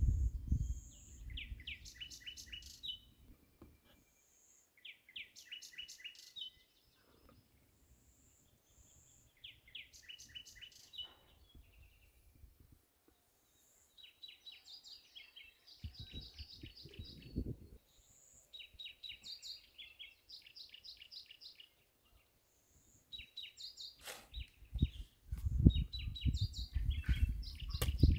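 A songbird singing short, high trilled phrases, repeated every few seconds. Low thumps and rustling come through at the start, briefly in the middle, and more strongly over the last few seconds.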